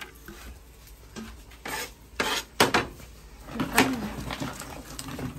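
Kitchen knife cutting a raw potato, with about four sharp knocks of the blade and falling pieces on a cutting board, spread unevenly across a few seconds.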